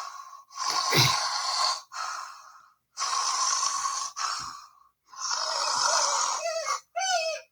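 A voice making three loud, breathy gasping bursts, then squeaky high-pitched vocal sounds near the end.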